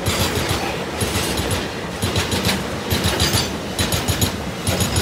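Container flat wagons of a freight train rolling past close by: a steady rumble with the wheels clattering over the rail joints in groups of clicks about once a second.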